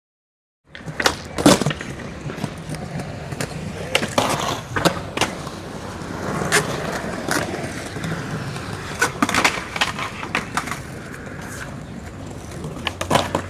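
Skateboard wheels rolling on pavement with a steady rumble, broken by sharp clacks and knocks as the board hits cracks and its tail or trucks strike the ground.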